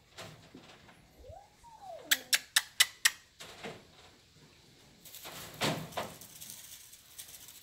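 A Havana Brown kitten gives one short meow that rises and then falls. It is followed by five sharp clicks in quick succession, the loudest sounds here, and a brief rustling noise a couple of seconds later.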